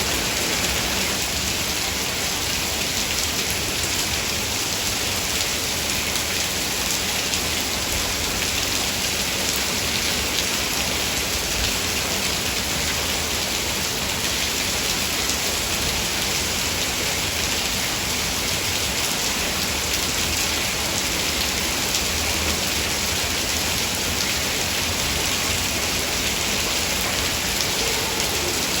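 Heavy rain falling steadily, a dense even hiss with the patter of countless drops.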